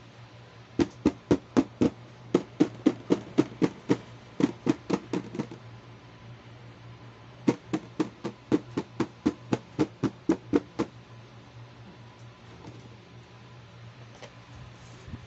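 Fingers tapping on the lid of a clear plastic storage box: about four sharp knocks a second in two runs, with a pause of about two seconds between them.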